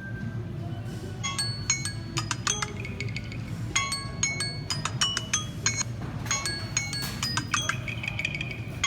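Samsung Galaxy A50 ringtone playing: a quick melody of bright, bell-like struck notes that starts about a second in, over a steady low hum.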